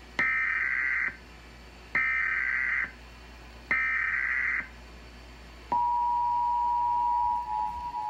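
Emergency Alert System tones from a television: three short, screechy bursts of SAME header data about a second apart, then the steady two-tone EAS attention signal starting near six seconds in.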